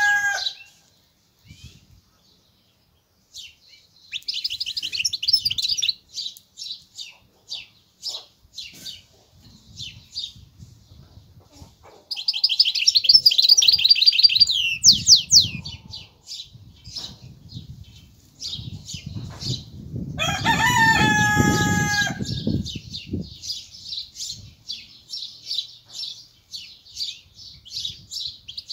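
Caged goldfinch hybrid (mule) singing in bursts of fast, high twittering notes and rapid trills. A rooster crows loudly once about twenty seconds in.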